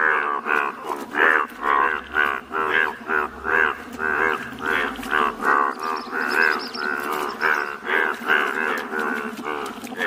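Chorus of male Indian bullfrogs calling in breeding season, many loud, short, moo-like calls overlapping and repeating several times a second.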